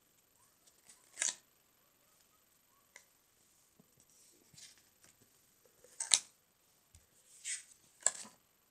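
Paper pages of a spiral-bound sketchbook being turned and handled, a short swish or rustle about five times, the loudest about six seconds in and two close together near the end.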